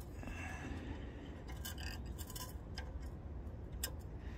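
Needle-nose pliers and a small steel governor spring clicking and scraping against the engine's throttle linkage as the spring is worked into its hole: a few light metal clicks in the middle and near the end, over a low steady hum.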